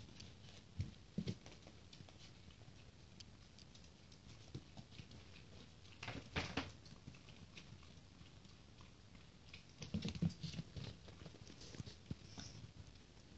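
Faint light taps and scuffs of a 45-day-old Japanese Chin puppy's paws moving on the floor of its pen, in short clusters about a second in, around six seconds and around ten seconds.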